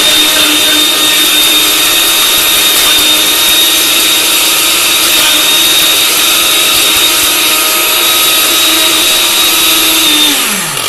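Countertop glass-jar blender running steadily at full speed with a Samsung Galaxy S3 in the jar, its motor giving a constant high whine. Near the end it is switched off and the motor's pitch falls as it spins down.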